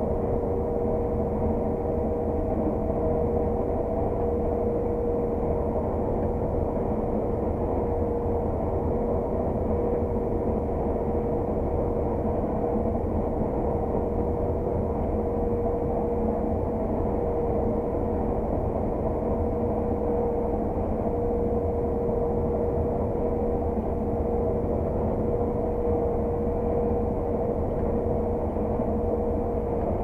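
Claas Lexion 600 TT combine harvester heard from inside its cab while cutting oilseed rape: engine and threshing machinery running steadily under load as a constant drone, with a steady whining tone through it.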